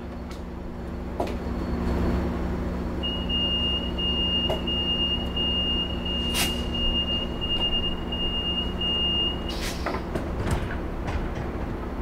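Metrolink bilevel passenger train idling at the platform with a steady low hum, while a high continuous door warning tone sounds for about six seconds. A sharp clack comes midway through the tone and a louder clunk just after it stops, as the sliding doors begin to close.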